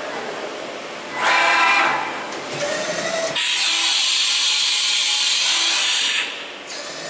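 1997 Mikron-Haas VCE500 CNC machining center running: a brief whirring burst about a second in, then a loud steady hiss that starts abruptly and cuts off suddenly about three seconds later.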